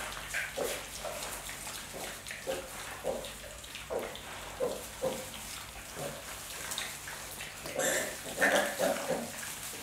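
Minnesota minipigs, a sow and her piglets, grunting in short calls roughly every half second as they feed. A louder, higher cluster of calls comes about eight seconds in.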